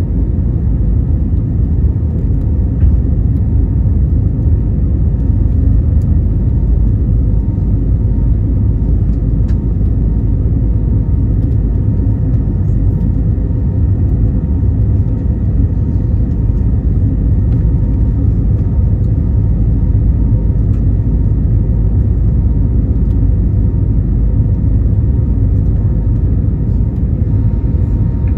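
Steady cabin noise of an Airbus A320neo in its climb, heard from a window seat: its two CFM LEAP-1A turbofans running with air rushing past the fuselage, a dense low rumble with a faint steady whine above it.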